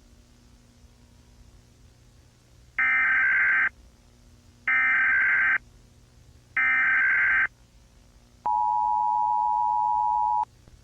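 Emergency Alert System tones: three harsh data bursts of about a second each, spaced about two seconds apart (the SAME header), then the two-tone EAS attention signal held for about two seconds and cutting off suddenly.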